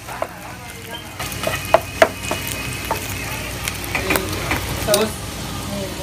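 Chopped aromatics sizzling in oil in a nonstick frying pan while a wooden spatula stirs and scrapes them, with sharp clicks of the spatula against the pan. The sizzle grows louder about a second in, and the loudest clicks come about two seconds in and again near five seconds.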